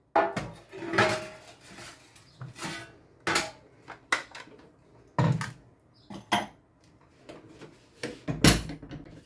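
Kitchenware being handled: a cake pan and utensils set down and moved about, giving a series of separate clanks and knocks with short pauses between them.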